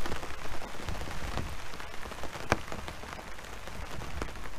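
Steady rain falling, with individual drops striking close by; one sharper drop strike comes about two and a half seconds in.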